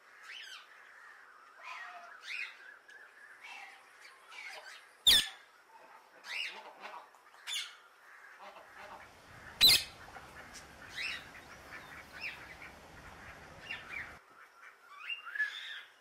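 Parakeet calling: a run of short, high chirps and squawks, with two much louder, sharper squawks about five seconds and ten seconds in.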